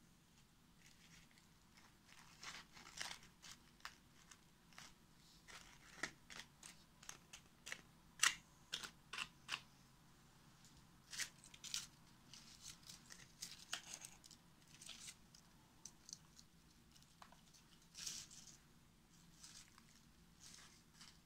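Dry plant material and paper being handled: irregular light crackles, crinkles and sharp little clicks, scattered and unevenly spaced, as pieces are picked up and set in place.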